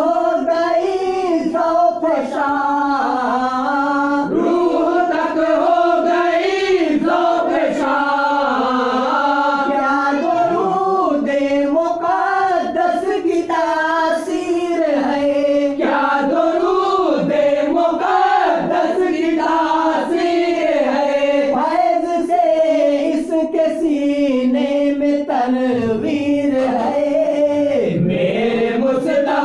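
Vocal chorus of a naat holding the melody between verses, voices only with no instruments or beat, in a smooth flowing line.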